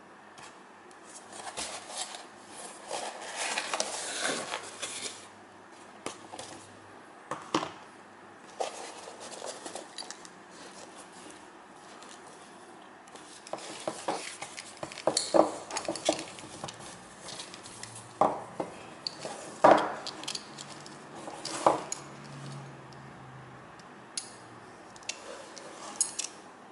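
A cardboard box being opened with rustling of its packing, then a solid brass belt buckle and its brass screws clinking and knocking as a full-grain leather belt is handled, in scattered sharp clicks.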